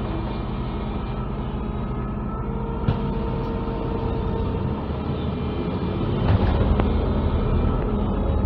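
Cabin noise of a MAZ-203 low-floor city bus under way: the engine and drivetrain running with a steady road rumble and rattles. There is a single sharp click about three seconds in, and the sound grows louder from about six seconds in, with a few knocks.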